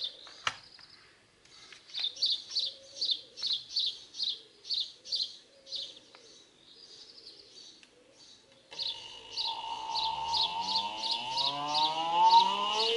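A bird chirps in a rapid repeated series. About nine seconds in, the car alternator converted to a brushless motor with a 3D-printed permanent-magnet rotor starts up unloaded on its controller: a steady high whine with a lower whine that climbs steadily in pitch as the motor spins up.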